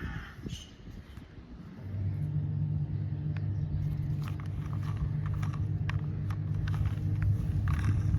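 Steady low engine-like rumble from a toy construction vehicle, starting about two seconds in, with scattered light clicks over it.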